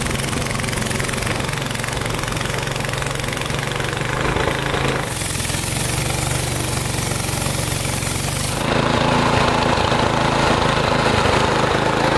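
Long-tail boat engine running steadily, driving a wooden river boat. Its tone and level shift abruptly about five and nine seconds in, and it is louder after the second shift.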